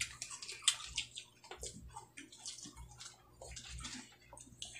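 People chewing dried fish and rice and eating with their fingers, heard as a run of irregular soft clicks and wet mouth sounds.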